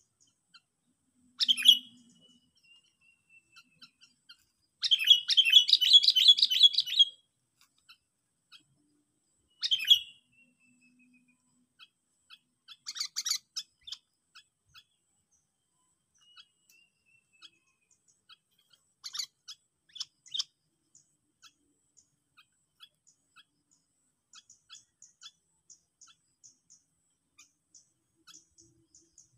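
Sooty-headed bulbul (kutilang) decoy calling. A sharp call comes first, then a fast chattering run of about two seconds, then single calls spaced several seconds apart. Faint short notes follow near the end.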